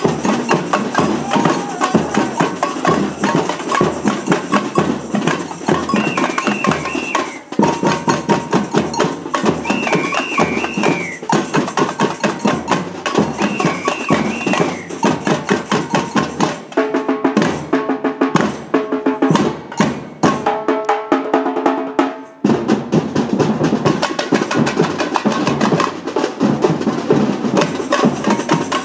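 Batucada samba percussion group playing a fast, dense rhythm: tamborims struck with sticks over surdo bass drums and snare drums. A high warbling call sounds three times, about four seconds apart. A few seconds past the middle the drumming breaks into stop-start hits for several seconds, then the full groove resumes.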